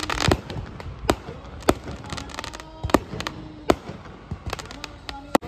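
Aerial fireworks going off: a string of sharp bangs and pops at irregular intervals, with a burst of crackling right at the start.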